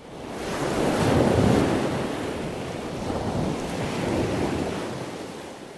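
Wind buffeting the microphone, with the wash of ocean surf beneath it; it swells up over the first second, gusts, and fades toward the end.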